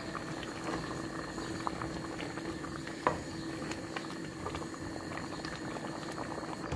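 Thick lotha and prawn curry boiling hard in a metal pot, a steady mass of bubbling and popping over a faint steady hum. A single sharp knock comes about three seconds in.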